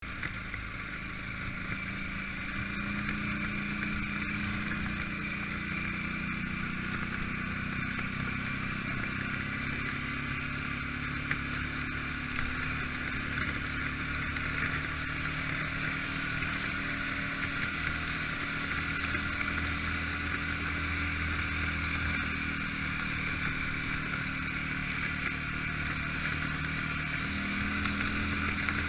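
A vehicle engine running steadily at a fairly constant speed, its pitch drifting only slightly.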